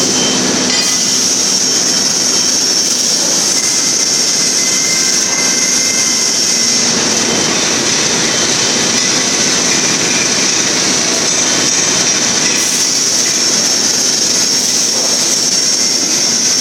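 Steady industrial machinery noise from a running particleboard production line's press loading racks and roller conveyors, with a constant high-pitched hiss over a broad rumble.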